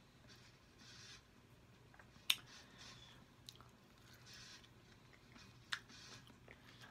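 Quiet chewing and wet mouth sounds of a person eating soft sauce-covered food, with two sharp smacks, about two seconds in and near the end.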